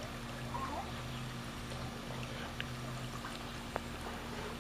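Swimming pool water lapping and trickling as a steady hiss, with a low steady hum underneath and two faint ticks in the second half.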